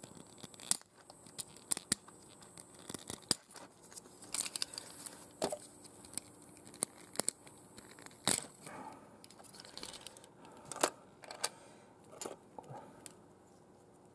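Hands handling the plastic parts of a Hachette Mazinger Z Hover Pilder model: irregular small clicks, taps and rustling of plastic pieces as it is taken apart, with a sharper click a little over 8 seconds in and another near 11 seconds.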